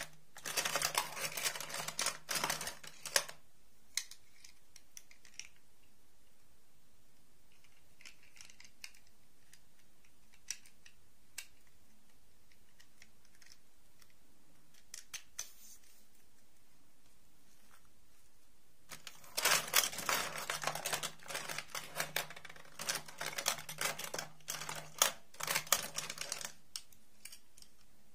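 Small plastic dolls and clip-on plastic dresses clicking and rattling against each other and the wooden box as hands rummage through them. Busy clattering at the start and again for several seconds from about two-thirds through, with only a few scattered clicks between.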